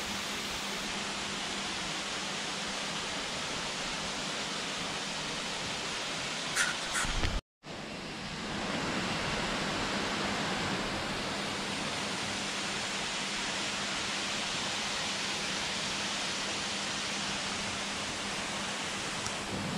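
Waterfall pouring into a pool, a steady rushing hiss. A couple of knocks come about six and a half seconds in. Just after, the sound drops out for a moment, then the rush resumes slightly louder.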